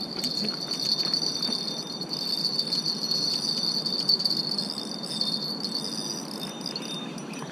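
An insect, such as a cricket, trilling steadily at a high pitch, fading out about six and a half seconds in.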